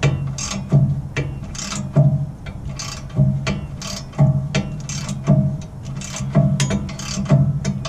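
Hand ratchet working a Loctite-coated rear brake caliper bolt in short repeated strokes, about one a second. Each stroke brings a burst of ratchet clicks and a low buzzing tone, with the bolt still stiff from the threadlocker.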